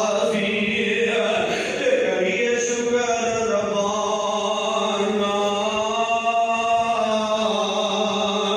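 A man chanting into a microphone in long, drawn-out melodic lines, one voice holding and slowly bending each note.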